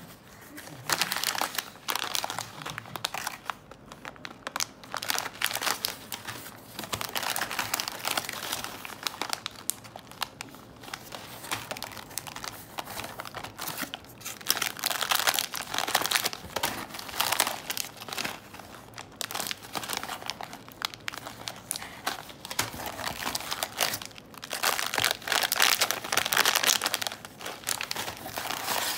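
Plastic pouches of hair-removal wax beads crinkling and rustling in irregular bursts as hands lift and handle them inside a cardboard box.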